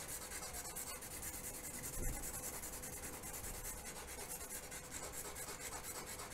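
Hard Nitram charcoal stick scratching across coarse-grained cheap watercolour paper in quick, even back-and-forth strokes, several a second, as a patch is shaded in.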